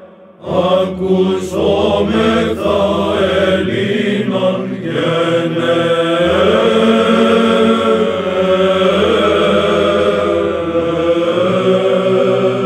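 Byzantine Orthodox chant sung by a church choir of chanters: a melody line over a held low drone, after a brief break in the singing at the very start.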